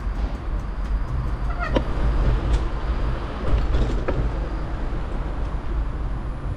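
Wind buffeting and rushing over a bicycle-mounted GoPro HERO9 Black's microphone as the bike rolls along, a steady low rumble. A few sharp clicks cut through it about two seconds in and again near four seconds.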